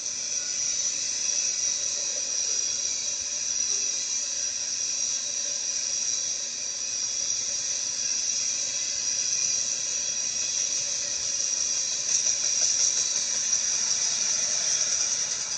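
Freight cars of a passing BNSF manifest train rolling by on the rails, a steady high-pitched hiss from the wheels that swells a little about twelve seconds in.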